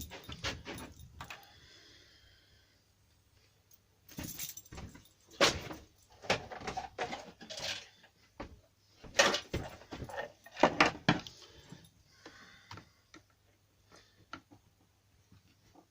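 Irregular clattering and knocks of hand tools and strimmer parts being handled, in short bursts from about four seconds in until about twelve seconds in.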